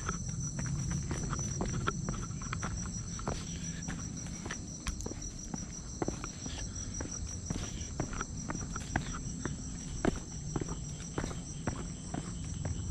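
A steady high-pitched insect chorus with a fine rapid pulse, over irregular footsteps on a hiking trail.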